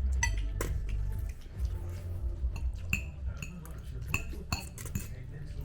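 Cutlery clinking against plates during a meal: a string of sharp, scattered clinks, some with a short ring, over a low rumble that eases after about a second.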